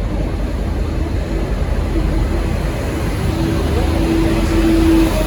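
V/Line N class diesel locomotive running, a deep steady engine rumble with a single whine over it that grows louder about three seconds in.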